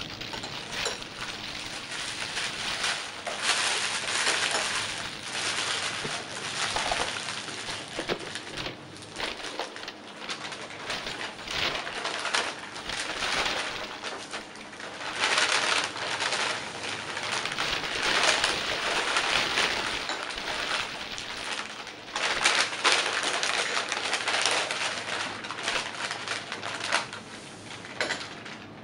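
Paper food wrappers and paper bags crinkling and rustling as leftovers are wrapped up and bagged, in irregular bursts of dense crackle that stop just before the end.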